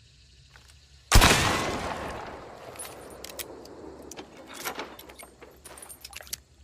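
A Maynard rifle fires a single shot about a second in, the report dying away over a couple of seconds. It is followed by a scattering of short metallic clicks and rattles.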